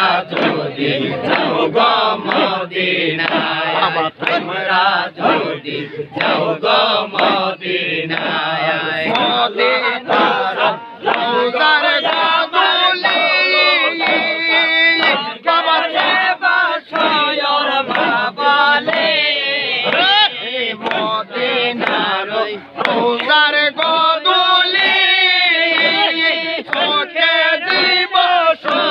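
Crowd of men chanting zikr together, loud and rhythmic, the voices breaking off and starting again in short repeated phrases.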